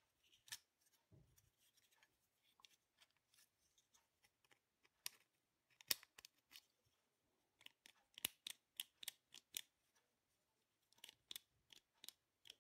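Quiet, scattered small clicks and scratches of a disassembled plastic headlight high/low-beam switch and its copper contacts being handled, with a quick run of clicks about eight to nine and a half seconds in.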